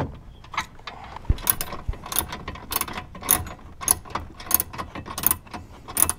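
Socket ratchet with a 12 mm socket clicking in short strokes as the horn's mounting bolt is worked loose. The clicks start about a second in and run steadily at about two to three a second.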